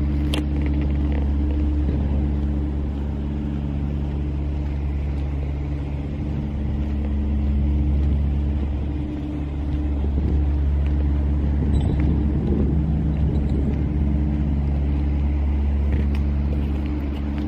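Low, steady mechanical hum at a constant pitch, like a motor or engine running at idle.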